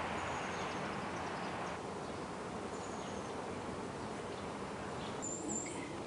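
Steady buzzing of a honeybee colony over an open hive, with a few short high bird chirps, the clearest near the end.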